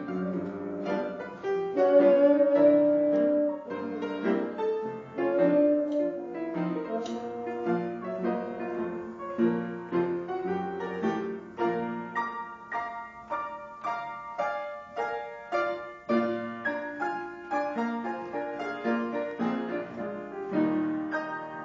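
Upright piano playing slow jazz, with long held notes from a wind instrument over it in the first several seconds; after that the piano carries on alone in evenly repeated chords.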